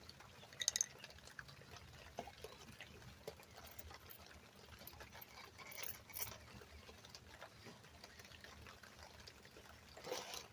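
Faint, scattered metal scraping and light taps as rust is worked loose from the brake caliper hardware.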